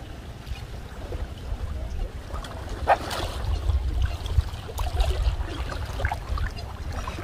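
Water sloshing and splashing as people wade and push a long-handled push net through deep, muddy river water, with a steady low rumble underneath. A sharper splash comes about three seconds in.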